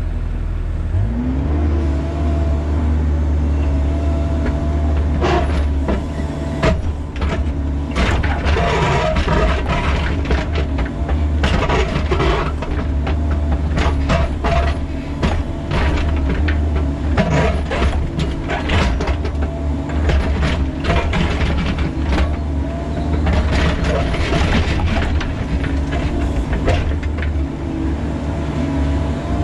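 Bobcat E45 mini excavator's diesel engine running, its revs rising about a second in, with a faint steady hydraulic whine. From about five seconds in, the steel bucket scrapes and knocks against rock over and over as it digs the trench.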